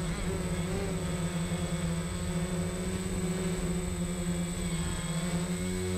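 DJI Phantom quadcopter's four motors and propellers buzzing steadily as it hovers low, picked up close by the GoPro Hero 4 mounted on it, with small wavers in pitch as the motors adjust.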